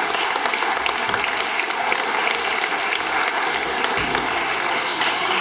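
Spectators applauding: many hands clapping at a steady level.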